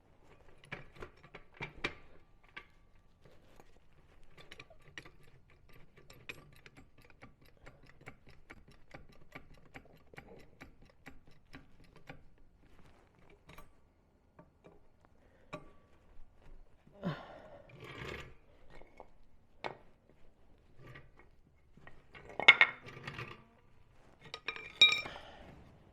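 Metal tools on a wheel during a tire change: a long run of small sharp clicks, then several louder metallic clanks near the end.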